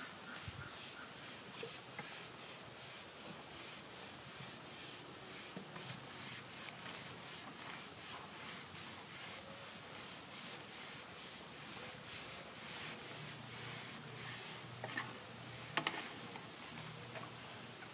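Rhythmic rubbing strokes, about two and a half a second, stopping about fourteen seconds in; a few sharp clicks follow near the end.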